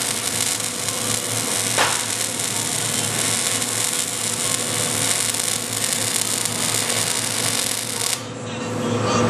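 MIG welding arc running on carbon steel pipe: a steady, dense crackle with one sharper click about two seconds in. The crackle cuts off abruptly about eight seconds in.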